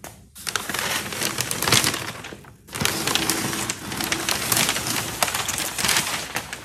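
Packing paper rustling and crinkling as it is pulled back by hand, in two long stretches with a short break about two and a half seconds in.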